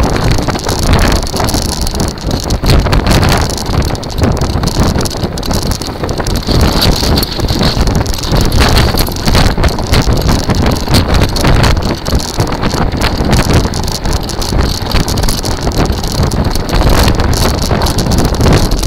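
Kite buggy rolling over sand and rough ground, its wheels and frame rumbling and rattling with many small knocks, while wind buffets the microphone.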